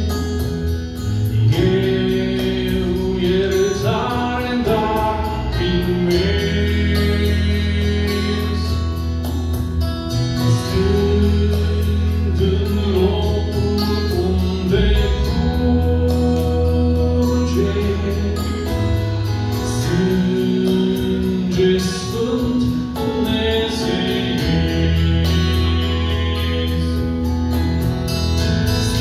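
Male gospel quartet singing a hymn in Romanian over instrumental accompaniment with sustained low notes. One man sings lead, and the other three join in harmony near the end.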